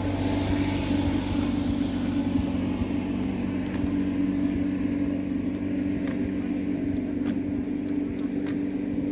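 An engine running steadily, a low, even drone with no change in speed.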